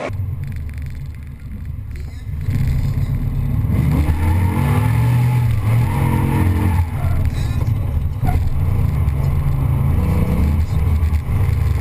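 A V8 car engine running hard and revving, growing louder over the first couple of seconds, then rising and falling in pitch as the throttle comes on and off.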